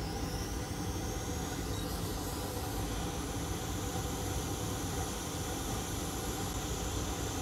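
Hot air rework station blowing a steady hiss of hot air onto a small inductor to melt its solder for removal. A faint high whine climbs in pitch about two seconds in.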